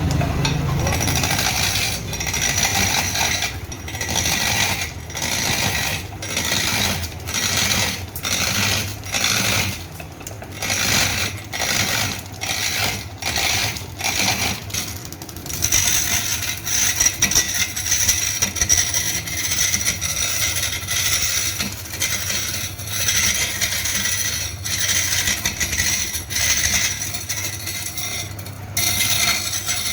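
Factory machinery running with a metallic clinking clatter, in strokes about once a second at first, becoming more continuous about halfway through.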